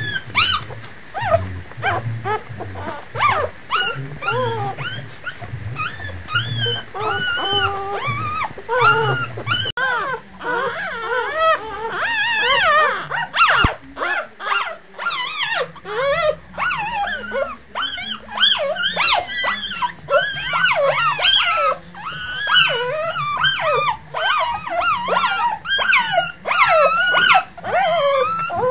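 A litter of newborn puppies squeaking and whimpering, many short high cries rising and falling and overlapping one another, with a low hum underneath in the first ten seconds.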